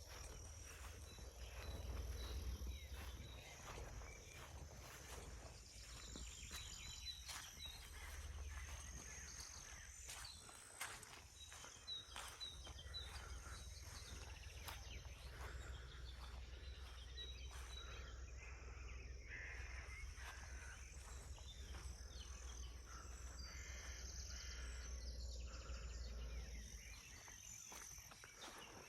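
Faint forest ambience: scattered short, high bird chirps over a low steady rumble, with small clicks throughout.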